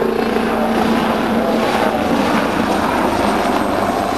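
Helicopter flying past in a display: steady rotor beat and turbine noise.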